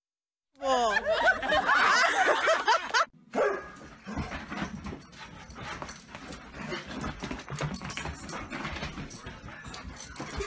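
A dog whining and yipping in a quick run of high, wavering cries for about two seconds. Then come quieter scratching and rustling as it paws and digs at the bed covers.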